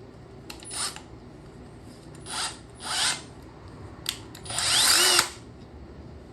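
Power drill run in short bursts with a larger bit, drilling into the metal of a Datsun 280ZX ignition lock cylinder beside its roll pin: three brief bursts, then a longer one near the end whose pitch rises as the drill spins up.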